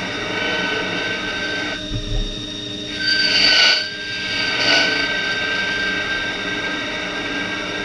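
Machine tool running with a steady high whine, with a louder rushing noise about three seconds in and again briefly near five seconds.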